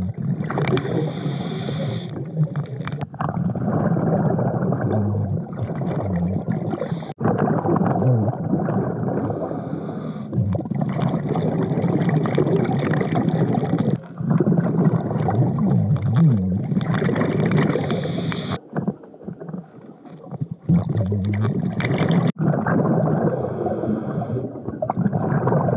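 Underwater sound of a diver breathing through a surface-supplied air regulator: a muffled, steady rush of water and air, with hissing bubble bursts on the exhales every several seconds. The sound changes abruptly several times.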